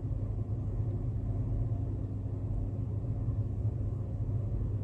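Steady low rumble of a lidded pan of curry cooking on the stove, with no separate pops or clicks.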